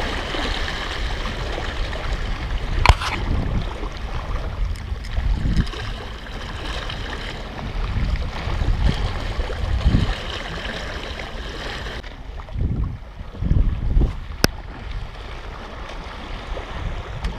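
Small waves washing and splashing against shoreline rocks, with wind rumbling on the microphone. Two sharp clicks, about three seconds in and near the end.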